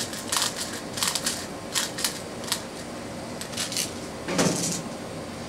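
BBs being pushed one at a time into an airsoft pistol's magazine: a run of small, irregular clicks. About four and a half seconds in comes a louder, brief rustle of handling.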